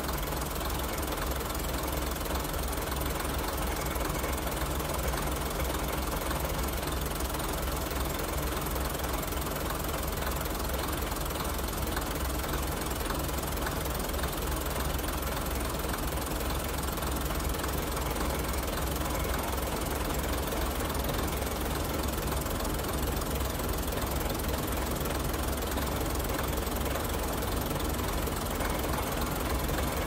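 Diesel local railcar with its engine running steadily: a constant drone with a deep, low rumble and no change in pace.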